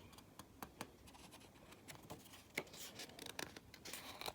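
Faint rustling and scattered light clicks of a picture book's paper pages being handled, busier in the second half.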